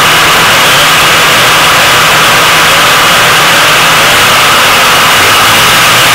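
Vintage two-stroke snowmobile engine idling steadily, very loud and close to the microphone.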